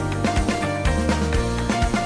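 Background music with a steady beat: sustained instrumental notes over regular drum hits.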